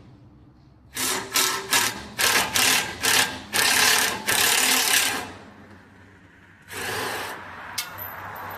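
A power tool run in about eight short bursts in quick succession, then once more briefly, with a sharp click near the end.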